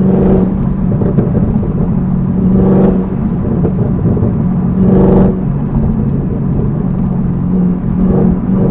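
Chevrolet Camaro ZL1's supercharged 6.2-litre V8, fitted with a Rotofab cold air intake, cruising in fifth gear at about 60 mph with a steady low drone. A few brief swells of noise come and go over it, about every two or three seconds.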